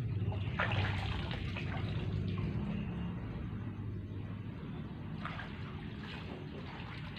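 Shallow pond water splashing and sloshing as a small container scoops azolla from the surface and bare feet wade through it, in two spells, one early and one near the end. A steady low hum runs underneath.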